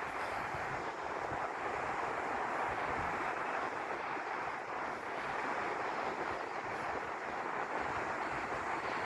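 Steady wash of ocean surf breaking on a beach, with wind buffeting the microphone in a low, unsteady rumble.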